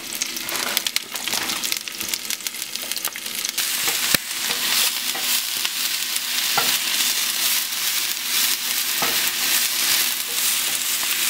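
Fresh spinach sizzling and wilting in a hot frying pan, stirred with a wooden spatula. The sizzle grows louder about three and a half seconds in, and a few sharp knocks, typical of the spatula striking the pan, come at intervals.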